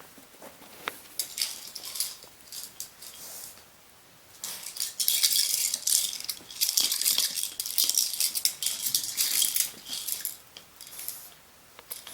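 Papillon having a reverse-sneezing fit: a rapid series of forceful, snuffling inhalations through the nose. A few short snorts come first, then a dense run of about five seconds from around four and a half seconds in.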